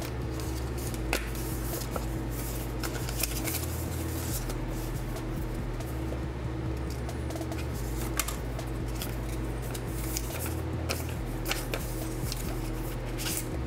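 Paper and thin cardboard rustling, with scattered light clicks, as the documentation folder from an iPad box is opened and its leaflets are handled. A steady low hum runs underneath.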